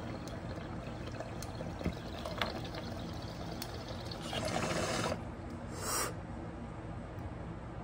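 Glass beaker bong bubbling steadily as smoke is drawn through the water, with scattered small pops. It bubbles louder for about a second past the four-second mark, and a short burst of rushing air follows at about six seconds as the bowl slide is pulled to clear the chamber.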